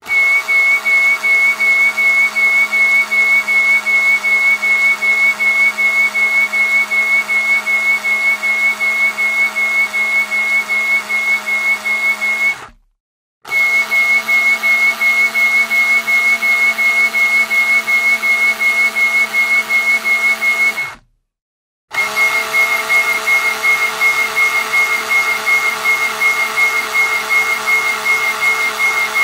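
A turning screw giving a steady, high whistle with a fast, even pulsing, in three runs that cut off sharply about 13 seconds in and again about 21 seconds in.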